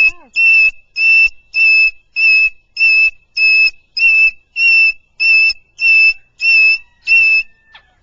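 Moluccan (salmon-crested) cockatoo calling in a fast, even series of about a dozen loud, identical, high whistle-like notes at a steady pitch, nearly two a second, breaking off shortly before the end.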